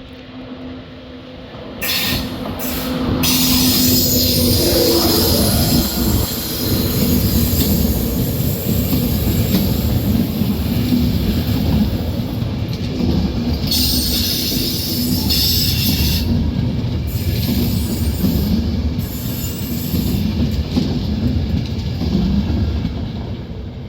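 Train running past at close range: a steady hum, then a loud rumble of wheels on the rails building about two seconds in and carrying on, with high wheel squeal coming and going.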